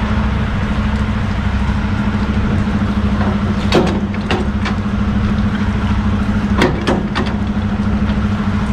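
Semi truck's diesel engine idling steadily in heavy rain, with a few sharp knocks around 4 and 7 seconds in.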